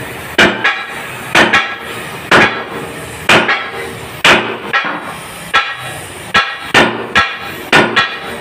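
Hammer striking torch-heated steel on an Isuzu truck axle housing: ringing metal-on-metal blows about once a second, coming faster near the end, over the steady hiss of the oxy-acetylene flame.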